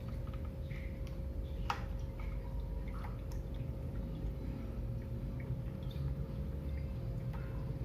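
Water splashing and dripping from a pump-fed aquarium waterfall, with scattered drip sounds, a sharper one about two seconds in, over the steady low hum of the water pump.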